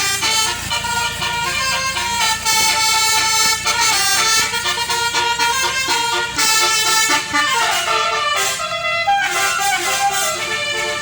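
A tour bus's telolet basuri melody horn playing a tune of quickly changing notes, over the low rumble of the bus's engine.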